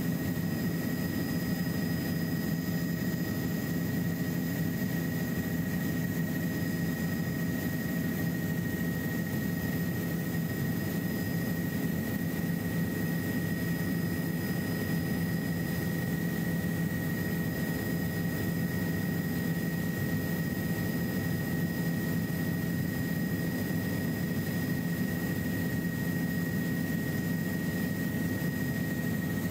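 Helicopter cabin noise in flight: a steady engine and rotor drone, with a constant high whine over it.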